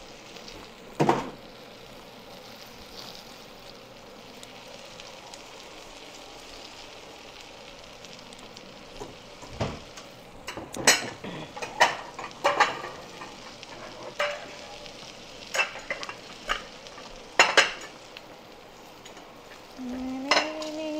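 Battered fritters deep-frying in hot oil with a steady, low sizzle. About halfway through, metal utensils clink and knock sharply against the pan and dishes several times.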